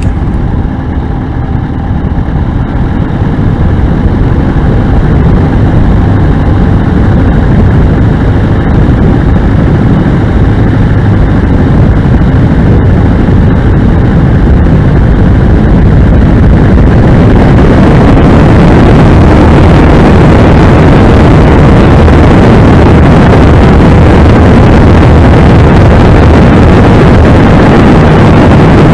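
The engine of the Gerle-2 open-cockpit light aircraft, running loud and heard close from the onboard camera. It builds over the first few seconds, then grows louder and noisier about 17 seconds in.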